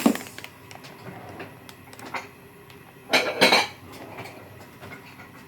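Kitchenware being handled: a knock at the start, a few light clicks, and a louder clatter of dishes about three seconds in.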